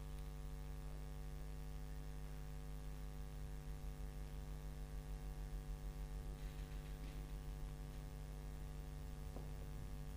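Steady electrical mains hum, with faint rubbing of a duster being wiped across a whiteboard around the middle.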